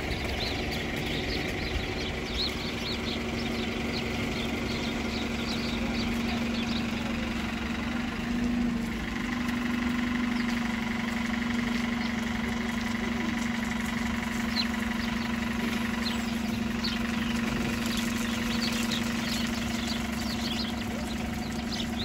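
A flock of house sparrows chirping, many short overlapping chirps that thin out in the middle and pick up again, over the steady hum of an idling bus engine.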